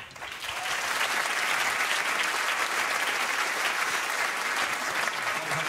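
Studio audience applauding, building over the first second and then holding steady.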